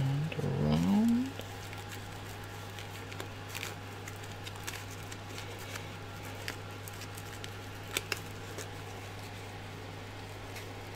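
Small clicks and rustles of hands working a textile cable sleeve around a bundle of printer wires, over a steady low hum. A brief wordless vocal sound, rising in pitch, in the first second.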